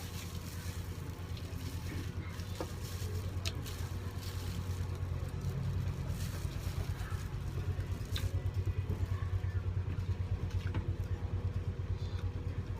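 A motor running steadily with a low, rapidly pulsing rumble, with a few faint clicks over it.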